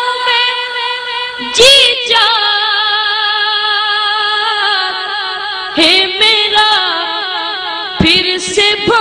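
A boy singing a naat, holding long notes with a wavering, ornamented pitch, and starting new drawn-out syllables about two, six and eight seconds in.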